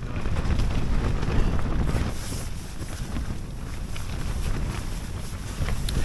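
Gale-force wind gusting against the tent and hitting the microphone: a heavy, uneven low rumble that swells and eases.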